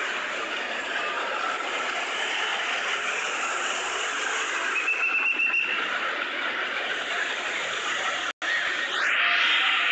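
Steady road and traffic noise as a convoy of vehicles drives past, with a short high tone about five seconds in. The sound cuts out for an instant just after eight seconds, and a rising whistle-like glide follows.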